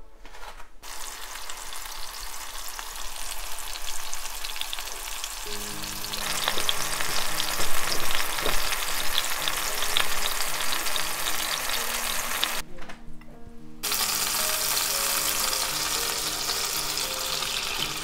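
Food frying in hot olive oil in a frying pan: a steady crackling sizzle. It breaks off for about a second two-thirds of the way through, then carries on, with soft background music coming in about five seconds in.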